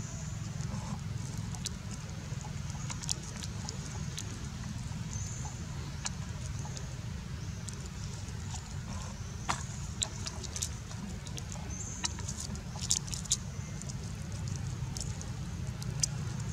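Outdoor ambience: a steady low rumble with a faint high hiss, broken by scattered sharp clicks and ticks, with small clusters of them a little past the middle and again later.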